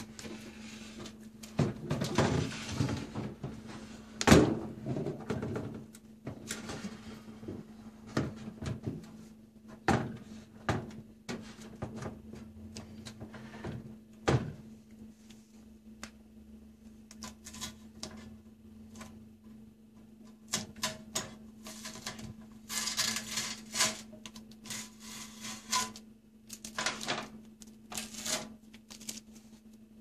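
Handling a microwave oven: knocks, clicks and scrapes of its metal casing as it is turned around on a wooden cabinet top, the sharpest knock about four seconds in. Later come several stretches of packing tape being peeled off the back to free the power cord.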